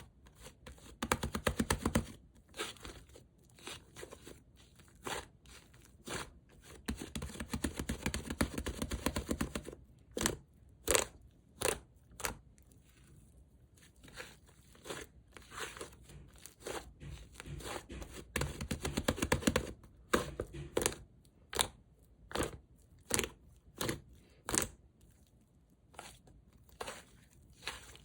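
Soft, sticky clay slime being squished and stretched by hand: dense runs of small crackles and sticky pops, with single sharper clicks in between.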